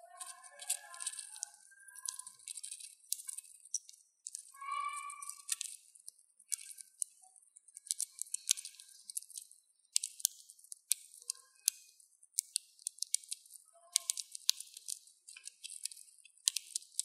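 Dwarf hamster husking sunflower seeds: a quick, irregular run of crisp clicks and crunches as its teeth split the shells.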